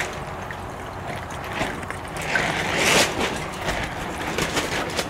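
Water running steadily through a magnet sluice, carrying fine tailings down over the magnetite, with a brief swell in the rush about three seconds in.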